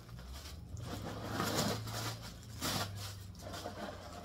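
Zip of a leather handbag being pulled open, with the leather and hardware rustling and scraping as the bag is handled.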